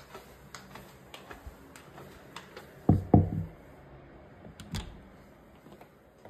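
A run of light, quick clicks, then two heavy dull thumps about three seconds in, followed nearly two seconds later by the click of an interior door's lever handle and latch as the door is opened.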